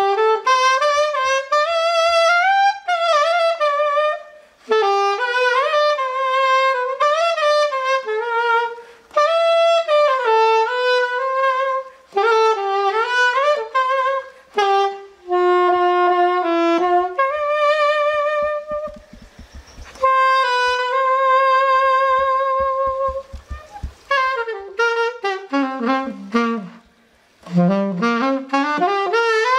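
Nickel-plated Ostrava alto saxophone played solo and unaccompanied: a melodic line with vibrato on the held notes and short breaks between phrases. Near the end it runs down into the low register.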